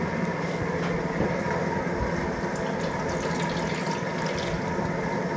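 Water poured from a jug over a hand and splashing into an aluminium bowl, hands being rinsed, over a steady low hum.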